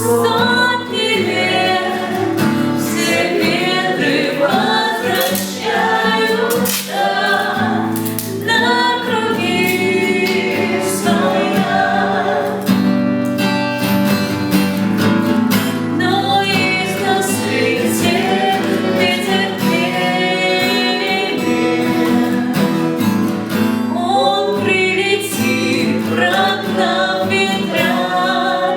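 A song sung over strummed acoustic guitar, with the melody carried by singing voices.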